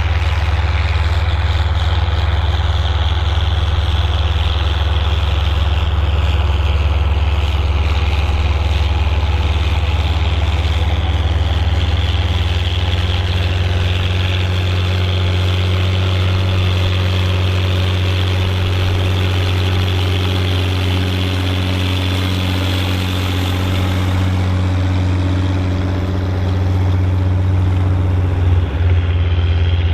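Volvo BM 810 Turbo tractor's turbo diesel engine running steadily under load while pulling a six-furrow plough through the soil, with a deep, even engine note.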